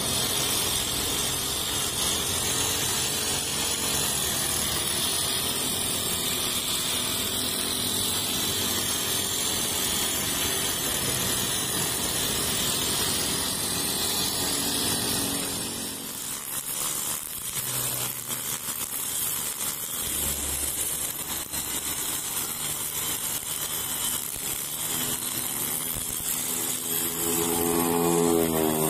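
Honda GX35 four-stroke engine of a backpack brush cutter running steadily at cutting speed, its 2.2 mm nylon line swishing through roadside grass. An engine note rises in pitch near the end.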